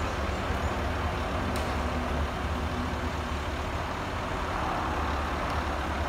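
Steady low rumble with an even hiss over it, unchanging, with no distinct event standing out.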